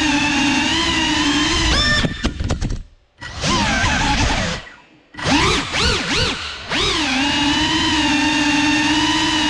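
Brushless motors of a GEPRC CineLog 35 cinewhoop FPV drone whining steadily. About two seconds in the throttle is chopped and punched: the whine twice cuts out almost to silence and comes back in quick rising and falling surges, then settles to a steady whine again.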